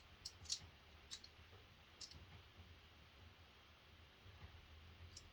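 Near silence: a few faint, sharp clicks in the first two seconds, over a low steady hum.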